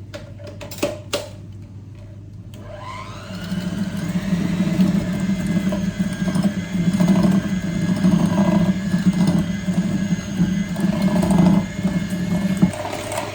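Electric mixer beating butter and icing sugar for icing in a bowl: a few clicks, then the motor starts about two and a half seconds in, rises in pitch as it spins up, and runs steadily with uneven swells as the beaters work the mixture.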